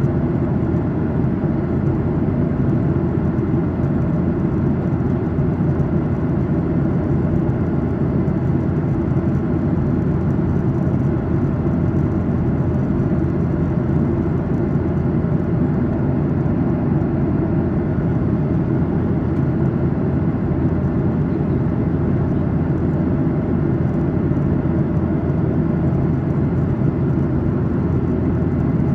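Steady cabin drone of a Boeing 737-800 in cruise, heard inside the aft economy cabin: airflow and the CFM56-7B turbofans blend into a low, even rumble.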